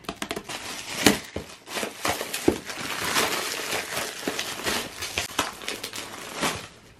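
Holographic foil gift wrap being torn off a box and crumpled: dense crinkling and rustling with many sharp crackles, busiest in the middle.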